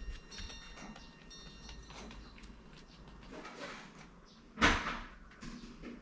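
An old Maltese dog gives one sudden, harsh cough about four and a half seconds in, with a few faint scuffling sounds before it.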